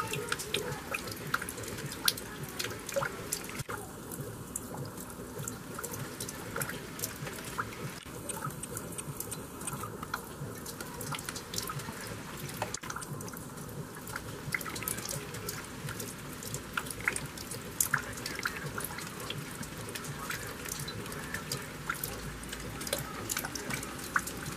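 Rain falling, with many separate drops dripping and tapping close by in an irregular patter.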